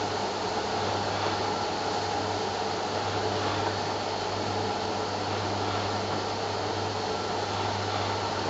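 Motorised fabric window blinds lowering, their electric motor running with a steady hum and whir.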